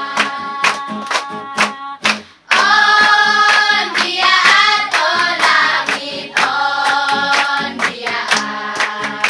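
A group of children singing together with steady rhythmic hand clapping. Both stop briefly about two and a half seconds in, then carry on.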